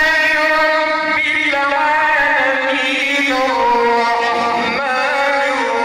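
A male qari reciting the Quran in the melodic chanted style, holding long ornamented notes that slide and turn from pitch to pitch.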